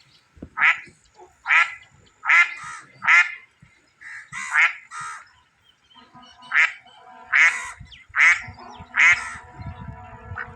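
Ducks quacking: about ten loud, harsh quacks in a loose series, some in quick pairs. A steady low drone comes in underneath about halfway through.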